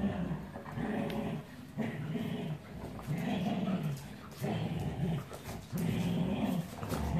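Dogs growling in play while tugging a plush toy between them: a run of about seven low growls, each half a second to a second long, with short breaks between.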